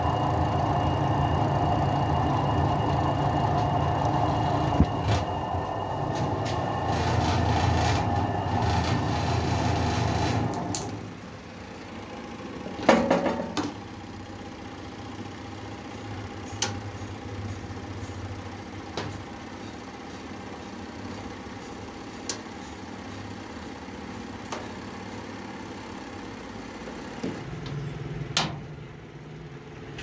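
Motor of a homemade 12-volt DC washing machine running with a steady hum, stopping about ten seconds in. A clunk and a few scattered sharp clicks follow, and a low hum starts up again near the end.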